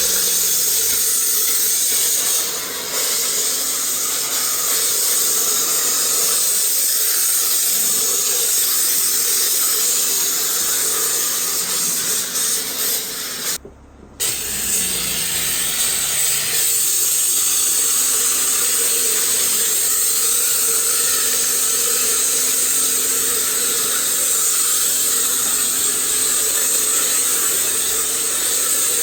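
Pressure washer spraying water at high pressure: a loud, steady hiss over a faint steady pump hum, cutting out for a moment about halfway through.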